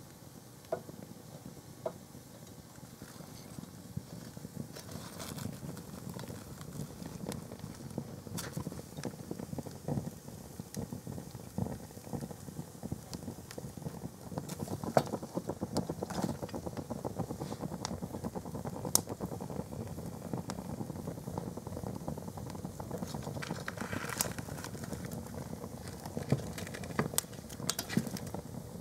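White canvas plimsolls burning in a fire, crackling with a dense run of small pops and a few sharper snaps. The fire grows somewhat louder from about halfway.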